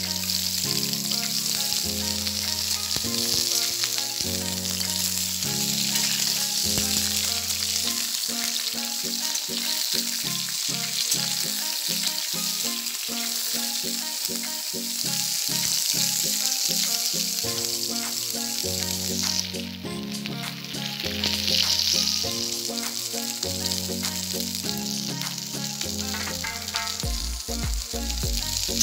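Moringa drumstick pieces sizzling as they fry in a steel kadhai, with the clicks and scrapes of a metal spatula stirring them. A simple background melody plays along with it.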